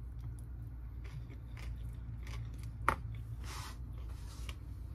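A person chewing a spoonful of egg roll in a bowl, with soft wet mouth sounds and small clicks. There is a single sharp click about three seconds in and a short breathy rush just after it, over a steady low hum.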